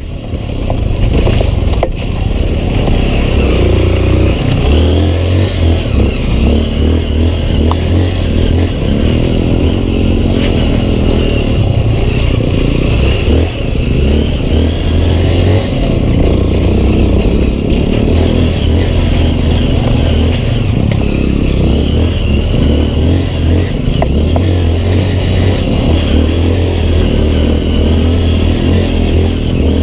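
Honda CRF150L dirt bike's single-cylinder four-stroke engine running under way on a rough trail, its level rising and falling with the throttle.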